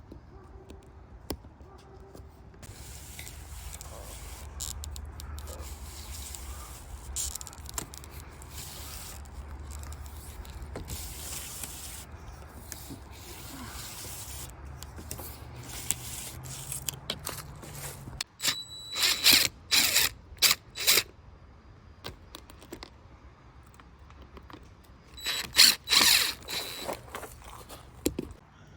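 Scraping and rubbing of hands-on work against a low steady hum, then a power drill run in short bursts, in two clusters: one about two-thirds of the way through and another near the end.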